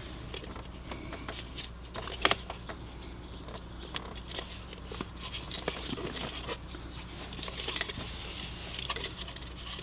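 Hands handling plastic car interior parts and a wiring connector: scattered light clicks and rustling, with one sharper click about two seconds in, over a steady low hum.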